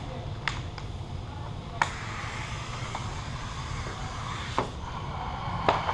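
Rustling and a few sharp clicks from handling a sheet of vinyl wrap film, over a steady low hum. The rustling grows from about two seconds in.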